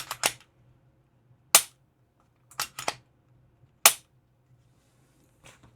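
Unloaded Glock 19 Gen 6 pistol being worked by hand: the slide racked with a quick double click, then a single loud snap of the trigger being dry-fired, twice over, with a fainter click near the end.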